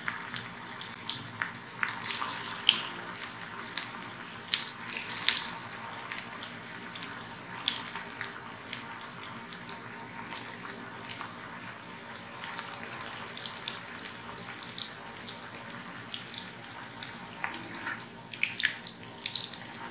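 Cabbage pakoda batter deep-frying in hot oil in a kadai: a steady sizzle with frequent sharp crackles and pops.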